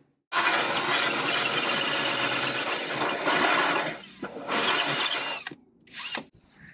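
Power drill running in bursts: one long run of about three and a half seconds, then a shorter run and a brief one near the end.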